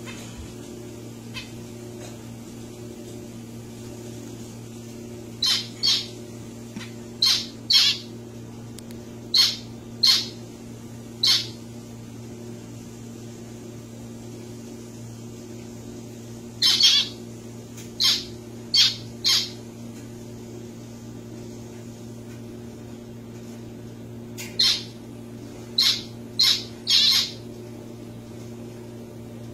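Zebra finches calling: short, sharp calls, singly or two or three in quick succession, in three bouts over a steady low hum.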